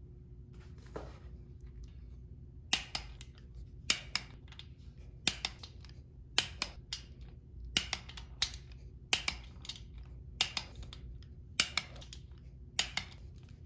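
Click-type torque wrench clicking as each cam cover bolt reaches its set torque of 140 inch-pounds. Sharp clicks, often in pairs, start nearly three seconds in and come about once a second.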